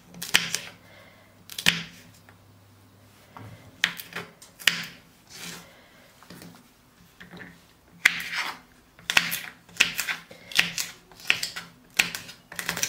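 Kitchen knife chopping flat green beans on a wooden cutting board: sharp knocks of the blade striking the board, a few scattered chops at first, then a steady run of about two a second in the second half.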